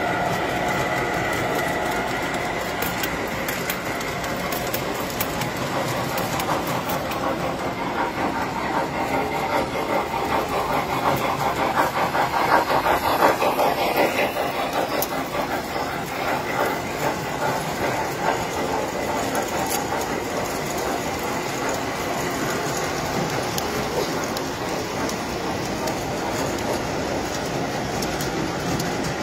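Tinplate model trains running on metal track: a steady rumble with rapid clicking and clatter of metal wheels. It is loudest about halfway through, as a locomotive passes close by.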